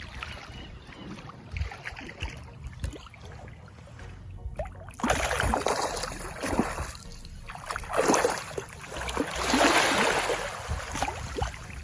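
Shallow water splashing and sloshing in irregular bursts, growing louder from about five seconds in.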